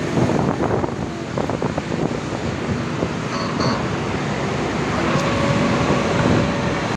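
Road traffic on a city bridge with wind buffeting a phone's microphone, a steady rushing noise with some clatter in the first two seconds. A faint steady tone joins about five seconds in.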